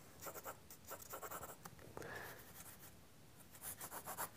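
Graphite pencil sketching on paper: short, light strokes, in a run during the first second and a half and another run near the end.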